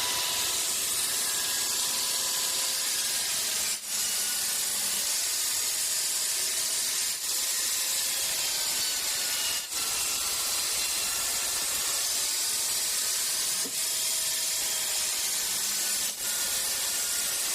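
Band sawmill running through wood, a steady high hiss with a faint whine, broken by short dips about five times.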